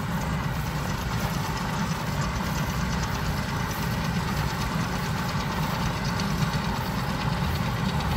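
Tractor engine running steadily under load, pulling a Krone KR 125 round baler that is working in the windrow.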